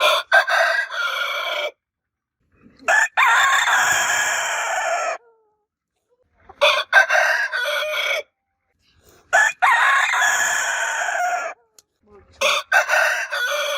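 Roosters crowing: five crows in a row, each a choppy start running into a long held note, with breaks of about a second between them.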